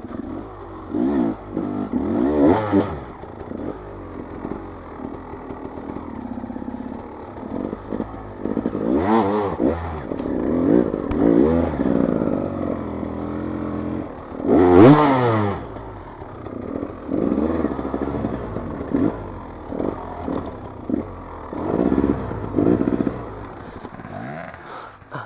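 Enduro motorcycle engine revving again and again in short bursts, the loudest about fifteen seconds in, with clatter and scraping as the bike works over fallen logs.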